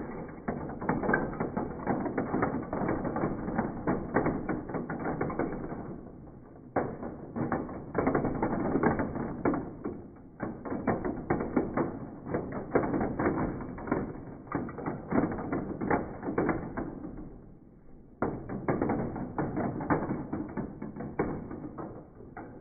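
Marbles rolling and clattering down a plastic marble run, a dense rattle of clicks against the plastic track, with two brief lulls, about six seconds and seventeen seconds in.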